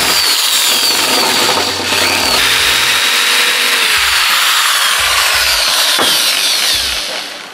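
Corded electric drill boring into the fixing of a plated brass deck cleat on a fibreglass boat deck. Its whine slides down in pitch several times as the bit bites, then it winds down near the end.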